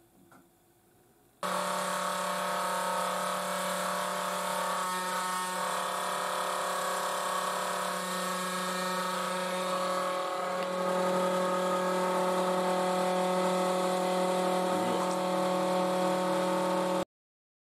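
Small CNC router spindle running steadily while milling carbon fiber sheet: a steady hum with several whining tones above it. It starts abruptly about a second and a half in, gets a little louder partway through, and cuts off abruptly near the end.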